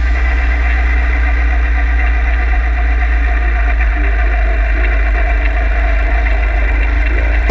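Suzuki ATV engine running at a steady speed while towing a loaded sled, a loud constant drone with no change in pitch.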